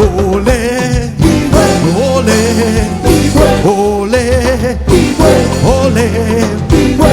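Live African praise music: a band playing with a voice singing a melody over steady bass and percussion.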